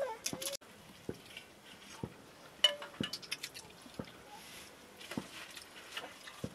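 Scattered light clinks and taps of spoons and tea glasses against metal dishes as people eat from a shared tray, with a few soft knocks.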